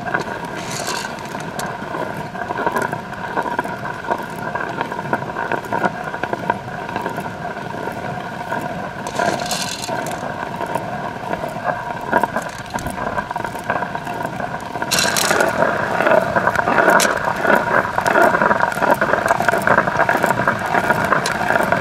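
Hand-turned stone quern grinding dried beans: the upper millstone scraping round on the lower stone with a steady gritty grinding and rattle, getting louder about fifteen seconds in.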